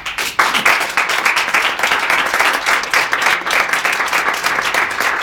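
Audience applauding: many hands clapping steadily, breaking out all at once.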